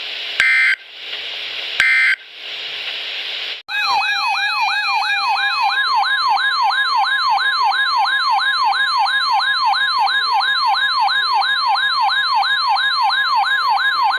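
NOAA Weather Radio alert: three short buzzy bursts of SAME digital header data over radio static. About four seconds in, a loud alert tone starts: a steady warning tone with a rapidly repeating, siren-like rising sweep, about three sweeps a second. This signals a new severe weather warning message.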